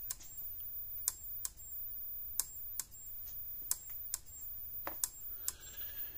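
Power Wizard PW18000 fence energizer pulsing with a double click: two sharp clicks under half a second apart, repeating about every 1.3 seconds. The double click is a fault ('it shouldn't be doing that'), which the repairer puts down to problems in the circuit board.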